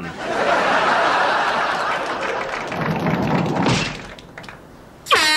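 Studio audience laughing for the first few seconds. Then, after a quieter moment, a loud, steady horn blast starts near the end.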